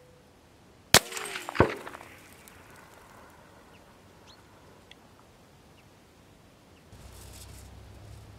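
Rifle fire on a steel gong target, heard from beside the target: a sharp crack about a second in, trailed by brief ringing that falls in pitch, then a second sharp crack about two-thirds of a second later.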